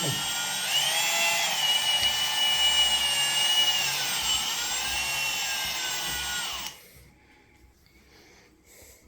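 Cordless drill-driver running steadily, backing a screw out of a hinge bracket, its motor whine rising slightly and dipping once in pitch. It stops suddenly about two-thirds of the way through, leaving only a few faint knocks.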